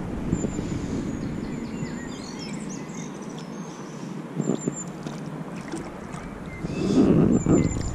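River water sloshing and splashing close by as a small hooked brown trout is drawn in, loudest for about a second near the end. Birds chirp in short, high notes in the background.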